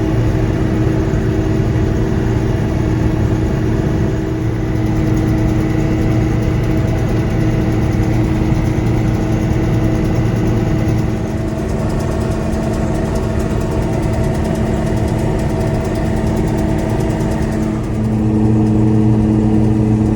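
Combine harvester's engine running steadily with a constant low hum, getting a little louder near the end.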